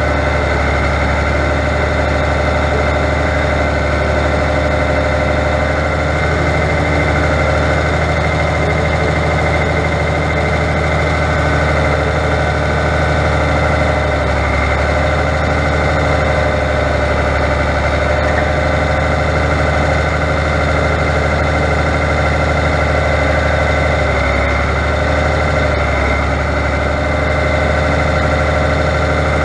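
Fiatagri 100-90 tractor's diesel engine running steadily under a loaded front loader, with a steady whine over the engine note.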